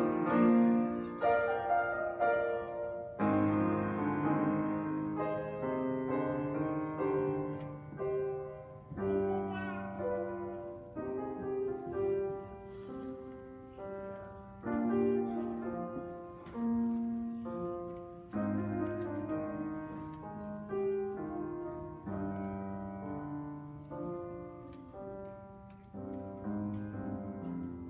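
Solo grand piano played in phrases, each starting with firmly struck notes that then die away.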